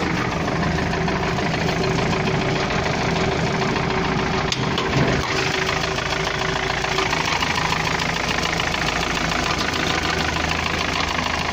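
UAZ-417 four-cylinder petrol engine idling steadily with a persistent knock, running like a diesel. Replacing the camshaft gear and the camshaft has not cured the knock.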